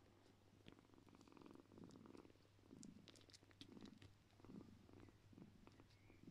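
Faint purring of a mother cat nursing her kittens, swelling and fading about once a second with each breath, with scattered faint clicks.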